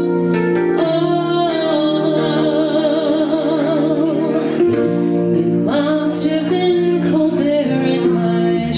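A song performed live: a singer holding long notes with vibrato over instrumental accompaniment.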